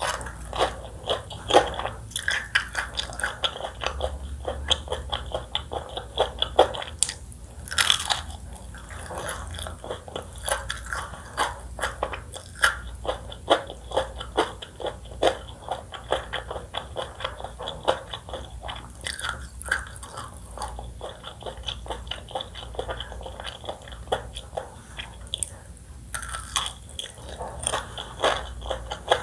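Close-miked eating: a steady run of crunchy bites and chewing, many sharp crackles, with a few louder crunches.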